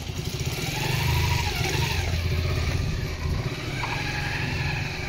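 A motor vehicle engine running steadily with a low, even rumble.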